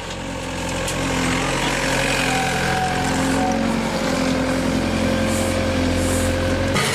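Engine of a piece of road-construction machinery running steadily, with a low drone and a faint high whine. It cuts off abruptly near the end.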